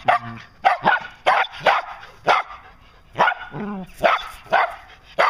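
Shetland sheepdog barking repeatedly in short, sharp barks, about two a second, excited barking at a play-fight between the dogs.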